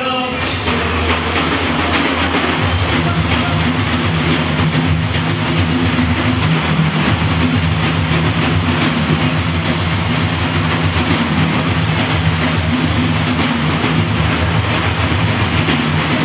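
A group of large frame drums struck together in a fast, dense, continuous roll, with a tambourine jingling along.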